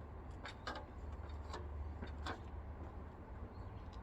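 A few sharp, separate clicks and clinks of hand tools on metal, over a steady low rumble.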